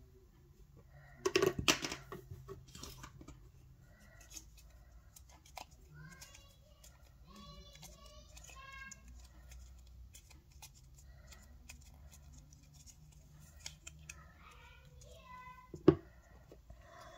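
Plastic Play-Doh tub lid handled on a wooden table: a clatter of sharp knocks about a second in and one sharp knock near the end, with soft handling and pressing of the dough between.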